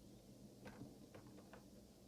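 Near silence with a low steady hum and about four faint, short clicks from computer input while modelling, the clearest about two-thirds of a second in.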